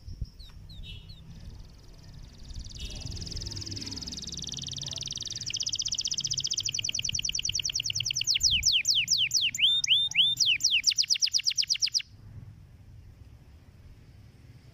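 Domestic canary singing a long song of rapid trills that grows louder, ending in loud, fast, downward-sweeping notes that stop abruptly about twelve seconds in.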